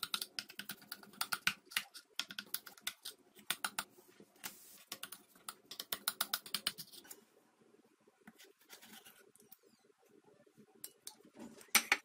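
Knife cutting through the crisp, browned cheese crust of a baked cauliflower gratin in a glass baking dish: a quick run of crackling clicks for about seven seconds, then a few scattered clicks and a louder cluster near the end.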